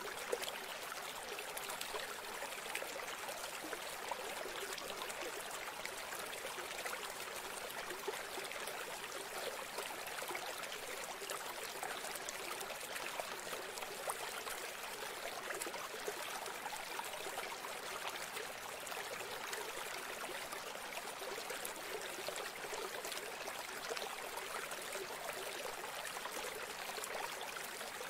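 River water rushing and trickling around a boat's hull: a steady, crackling wash with no speech.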